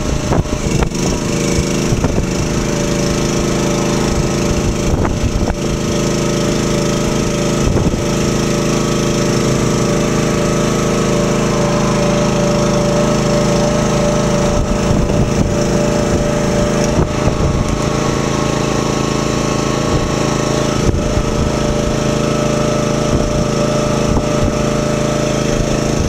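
The AmeriQuip Eagle 40H boom lift's small engine runs at a steady pitch, driving the hydraulics as the upper boom is raised.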